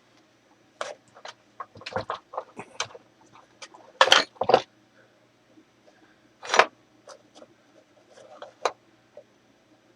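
Scattered light clicks and knocks of machine-shop parts being handled on a bench, with a few louder knocks about four seconds in and again past six seconds.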